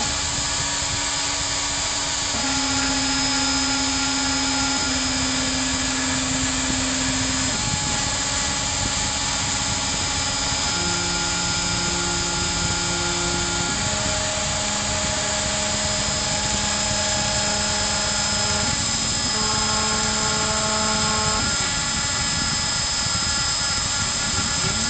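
Hobby CNC router engraving wood: the spindle runs with a steady high whine over a constant cutting noise, while the stepper motors sing in steady tones that jump to new pitches every few seconds as the axes change speed and direction.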